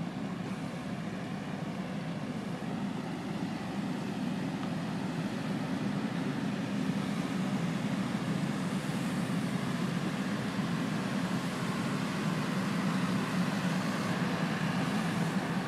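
A steady low engine rumble, slowly getting louder.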